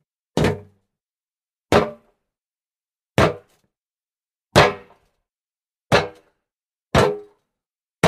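Feet landing from jumps onto hollow wood: six separate heavy thuds about one to one and a half seconds apart, each dying away quickly with a short hollow boom.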